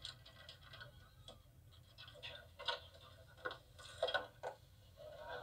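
Irregular light clicks and taps, about a dozen spread unevenly, at a low level.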